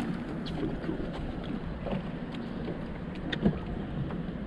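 Wind buffeting the microphone and small waves slapping against a bass boat's hull, with a few faint ticks and a single knock about three and a half seconds in.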